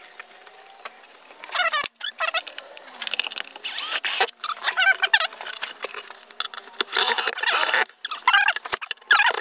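Cordless drill driving pocket-hole screws into plywood in a series of short bursts, with a high pitch that wavers up and down.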